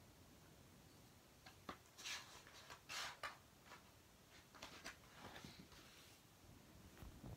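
Faint paper rustling in a few short bursts as a sheet of drawing paper is lifted and turned over, the loudest rustles about two and three seconds in.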